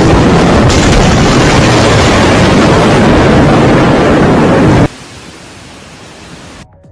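Typhoon wind blasting the microphone: a loud, overloaded rush of noise that cuts off suddenly about five seconds in, leaving a much quieter hiss.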